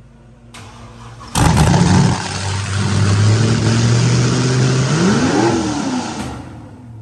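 LS V8 with a new, bigger cam running at a high, racing idle, jumping sharply louder about a second and a half in, with a rev that rises and falls near the end before it settles quieter. The engine is idling high on its own, which the crew blames on a vacuum leak from the open EGR port in the intake.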